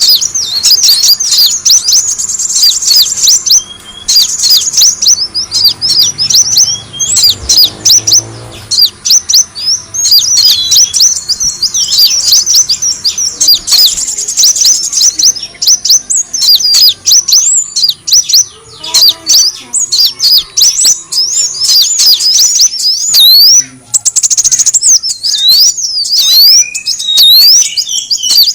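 Sunbird (Indonesian 'kolibri wulung') lure-call recording: a loud, unbroken stream of rapid, high, thin chirps and quick sweeping notes.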